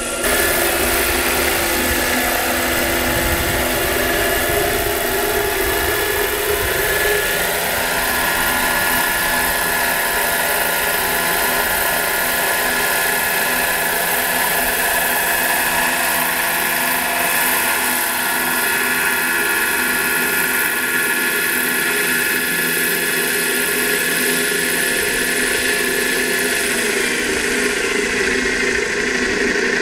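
Large-scale radio-controlled Bell 407 model helicopter flying and hovering, its motor and rotors making a steady whine, then settling onto the grass near the end.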